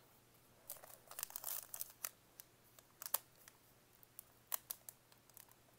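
A 2017 Panini Contenders football card pack wrapper being torn and peeled open by hand: faint, scattered crinkles and crackles, busiest in the first half.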